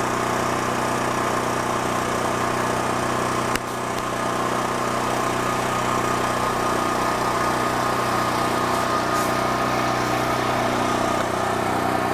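Compact electric pressure washer running steadily, its motor and pump humming while water sprays, with a brief tick and slight dip in level about three and a half seconds in.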